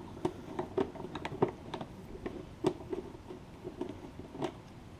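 Irregular small clicks and ticks from a hand screwdriver working screws out of a Honda Ruckus scooter's plastic battery box, several a second.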